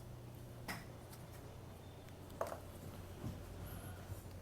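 A few faint clicks, two of them plain, over a low steady hum as an ATM is worked.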